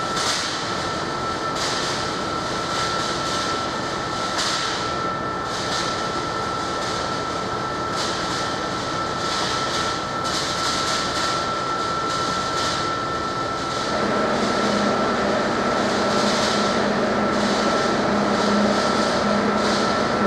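Amtrak ACS-64 electric locomotive approaching slowly: a steady whine from its electrical equipment and blowers over hiss that swells and fades. A lower hum joins about two-thirds of the way through and the sound grows louder as the locomotive draws near.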